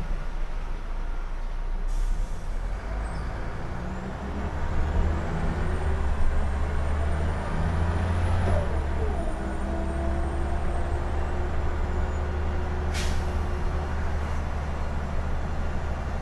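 Scania L94IB bus's diesel engine running as the bus drives, heard from the rear seats inside the cabin. The engine note strengthens a few seconds in and changes pitch about halfway through. Two short hisses of air, one about two seconds in and a sharper one near the end.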